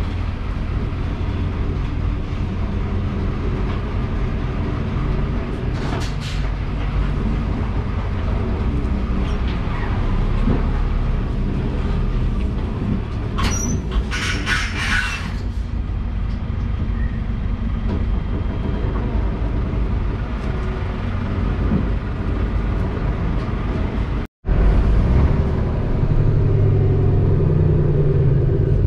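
Steady low rumble of tyres and running gear under a moving semi-trailer with a steered axle, heard from beneath the trailer, with a short burst of high clattering noise about halfway through. Near the end the sound drops out for an instant and gives way to the steadier drone of the Scania tractor's diesel engine heard inside the cab.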